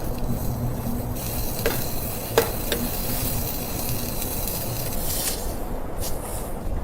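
Campfire crackling and hissing, with a few sharp pops about two seconds in, over a steady low rumble.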